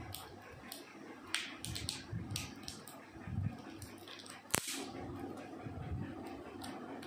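Light clicks and plastic rustling as a laptop charger's power brick and cable are handled and unwrapped, with one sharp snap about four and a half seconds in.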